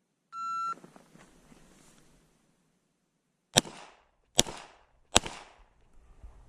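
A shot timer's single steady beep, then about three seconds later three shots from a Glock pistol, spaced a little under a second apart.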